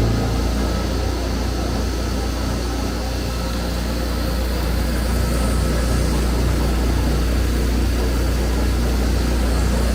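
Horizontal foam-cutting machine running with a steady, loud low hum.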